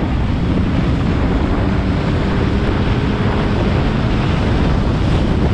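Loud, steady wind rush on the microphone of a moving Yamaha YG1 motorcycle, with the bike's small two-stroke single-cylinder engine running underneath.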